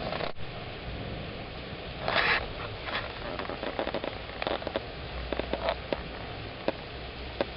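Steady rain during a thunderstorm, with scattered drops ticking sharply close by and a brief louder spatter about two seconds in.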